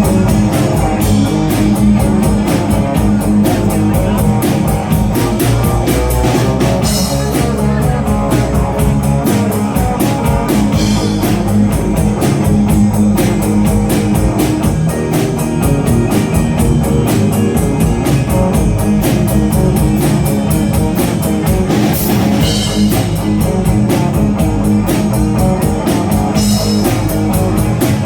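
Live rock band playing an instrumental break: electric guitar over bass and a steady drum-kit beat.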